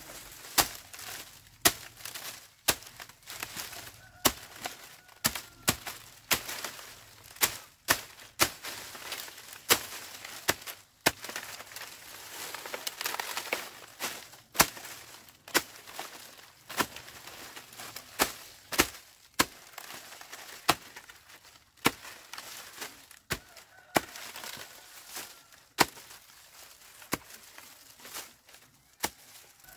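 Repeated sharp blows of a hand tool, roughly one a second and unevenly spaced. A chicken calls briefly twice.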